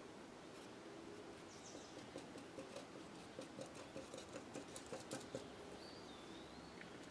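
Black marker dabbing short dashes onto cardstock: a run of faint, quick taps, about three or four a second, starting about two seconds in and stopping after about five.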